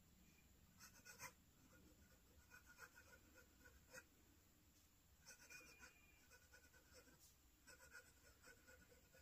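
Fountain pen with a black oxide Jowo #6 medium steel nib writing cursive on paper: faint, soft scratching of the nib in short runs of strokes with brief pauses between words.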